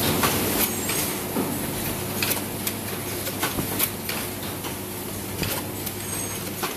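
Automated coat hanger production line machinery running: a steady machine hum with irregular clicks and clacks of moving parts.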